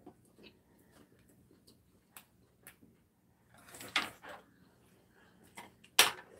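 Soft clicks of chopsticks and ceramic bowls at a dinner table, with a short noisy stretch about four seconds in and a sharp, louder sound near the end.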